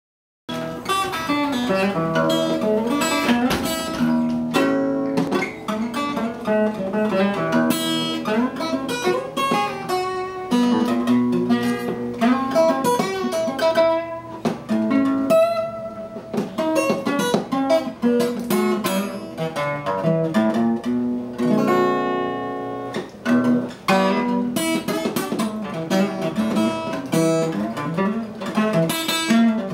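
Solo acoustic guitar playing a blues tune, picked notes mixed with strummed chords, without singing.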